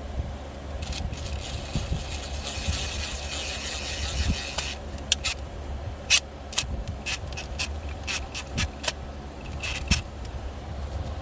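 Steering-wheel parts being handled and fitted: a scraping rub for a few seconds, then a run of sharp clicks and taps, over a steady low rumble.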